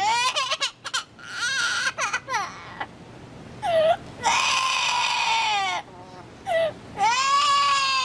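Yellow-naped amazon parrot calling: a quick run of short, choppy syllables, then two long drawn-out calls, each held for over a second and sliding down in pitch at the end.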